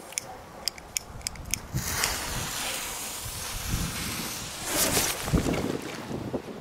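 A lighter struck about five times in quick clicks, then a firecracker fuse catches and hisses for a few seconds. Near the end the lit firecracker drops into the pond with a splash. Wind rumbles on the microphone throughout.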